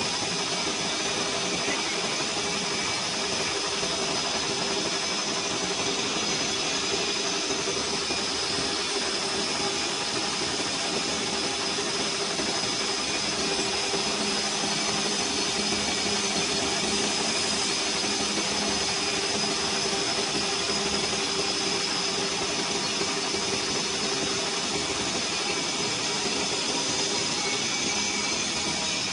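Lathe turning a 1.4301 (304) stainless steel pipe, the carbide tool cutting along its outside: a steady hiss of cutting with the machine's constant whines over it. A lower hum comes in about halfway through for several seconds.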